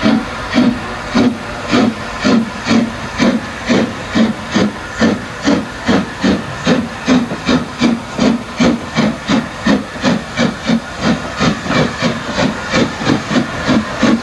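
Somerset & Dorset 7F 2-8-0 steam locomotive No. 53808 working a train away, its exhaust chuffing in an even beat that steadily quickens as it gathers speed, over a continuous hiss of steam.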